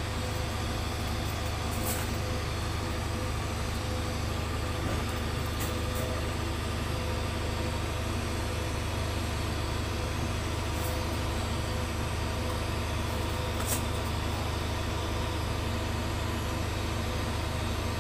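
Steady low machine drone with an even hiss at a TIG welding job on steel pipe, with a few faint ticks.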